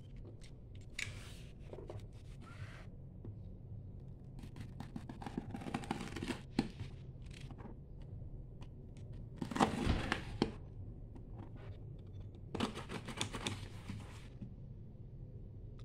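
Utility knife blade slitting the packing tape along a cardboard box's seams, in several scratchy strokes of about a second each, the loudest about ten seconds in, with the box shifted and knocked on the table between cuts.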